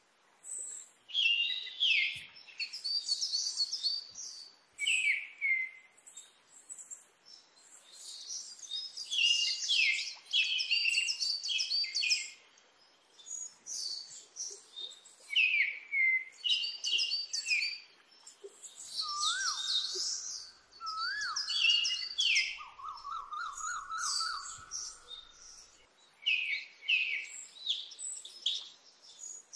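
Birds singing, with many quick high chirps and twitters throughout. A lower whistled phrase of two rising notes and a fast trill comes a little past the middle.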